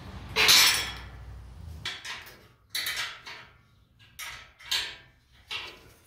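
Steel tools and parts clanking and clinking on a steel track frame: one loud metallic clank about half a second in, then a string of lighter clinks as bolts on the frame are worked by hand.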